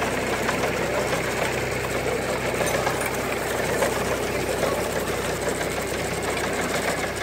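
Restored 19th-century self-raking reaper at work mowing grass: its sickle bar and gearing clatter steadily. A steady engine hum runs underneath.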